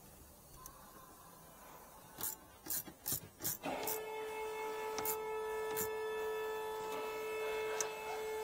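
A rapid series of short scrapes and rubs, hands and plastic trim working in a car's trunk floor compartment. About halfway through a steady pitched tone comes in and holds, with a couple more light scrapes over it.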